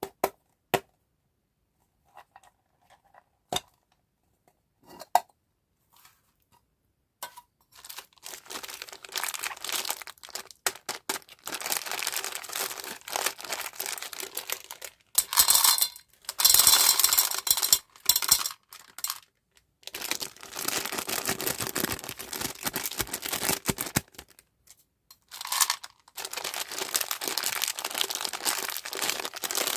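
A few sharp taps and clicks, then from several seconds in, candy wrappers being crinkled and torn open, with short pauses along the way.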